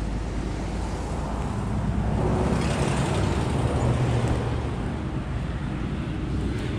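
Road traffic: a steady low engine hum, swelling as a vehicle passes close by about two to four seconds in.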